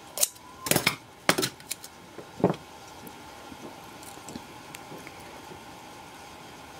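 Handling noise from 18650 lithium-ion cells being picked up and taped together: a few short clicks and knocks in the first two and a half seconds, then a steady hiss of hard rain on the roof.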